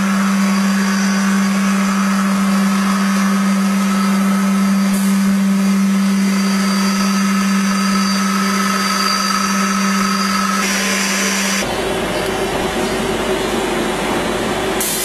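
Powder packing machine running, with a steady electric hum and a fainter, higher whine. About ten and a half seconds in comes a brief rush of hiss, and a second later the hum cuts off, leaving a rougher mechanical rattle.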